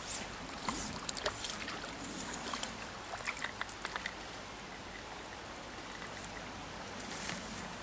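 River water flowing steadily over a rippled stretch, with a scatter of small clicks and ticks in the first half.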